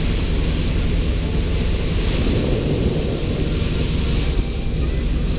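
Motorboat underway, its engine running steadily at cruising speed, with wind on the microphone and water rushing past the hull.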